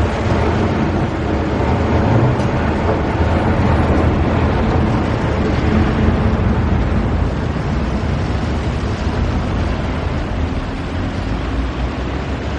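Factory machinery running: a dense, steady mechanical din with a low hum underneath.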